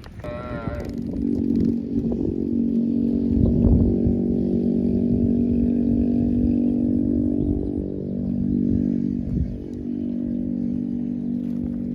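An engine running steadily at a constant speed, a low, even drone that comes in about a second in. A brief wavering call is heard right at the start.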